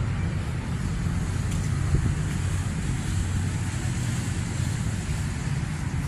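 Daihatsu Taft GT diesel engine running steadily with an even low rumble, with a short knock about two seconds in.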